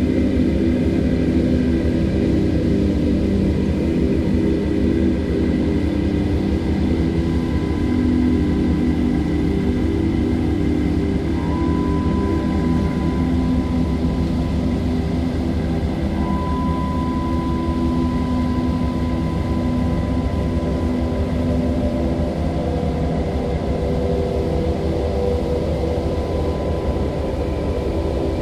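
Rushing mountain river pouring over boulders, a steady low roar, with soft held ambient music tones sounding over it that shift slowly.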